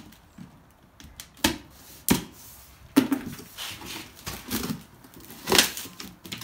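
A boxed auto part being unpacked: packaging rustling, with a handful of sharp knocks and clicks, four of them louder than the rest.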